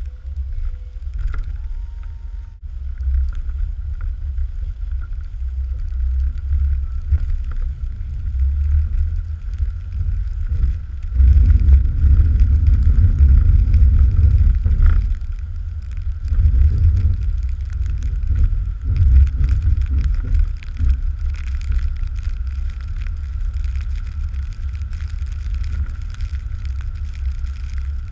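Engine of the heavy snow-plowing machine carrying a 16-foot Ebling back blade, running steadily under load with a deep rumble and a steady high whine. It grows louder for a few seconds about eleven seconds in.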